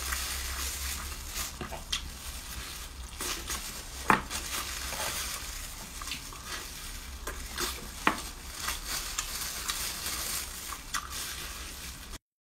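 Close-miked eating sounds of someone biting and chewing glazed cola chicken wings: a steady crackly hiss with scattered sharp clicks and smacks. The sound cuts off abruptly near the end.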